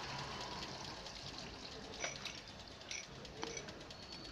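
Faint hands-on adjustment of the tool post on a Traub A32 automatic lathe: a few light clicks of a hex key and tool against the post, about two, three and three and a half seconds in, over a low steady hiss like trickling cutting coolant.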